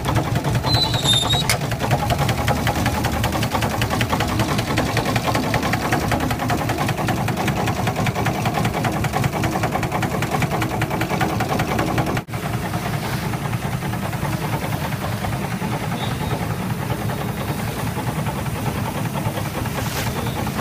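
Small steam launch engine running steadily with a rapid, even mechanical clatter. A short high chirp sounds about a second in, and the sound cuts out for an instant about twelve seconds in.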